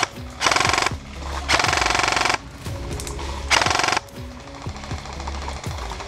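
Airsoft electric guns firing several short full-auto bursts, each a rapid rattle of shots lasting under a second, over background music.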